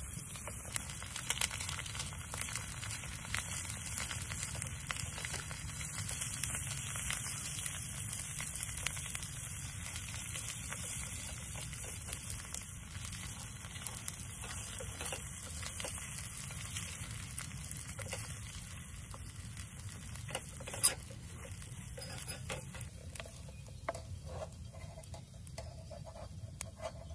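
Steady rain falling, with many individual drops ticking throughout. The rain eases slightly toward the end, where a few light clicks come through.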